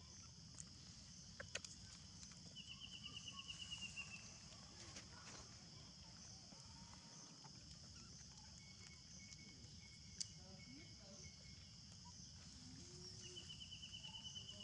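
Quiet forest ambience: a steady high-pitched hiss with a rapid trill about two seconds in and again near the end, a faint run of short notes in the middle, and a few soft clicks.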